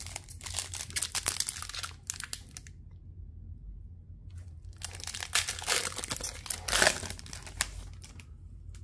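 Foil wrapper of a hockey trading-card pack being torn open and crinkled by hand, in two bouts of crackling with a pause of about two seconds between them.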